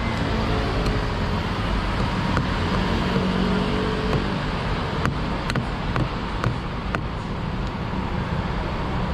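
Steady street traffic noise, with a few sharp, light clicks scattered through it.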